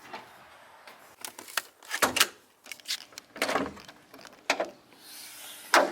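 A series of separate sharp knocks and clicks from hands working with tools and parts, about six in all, the loudest near the end.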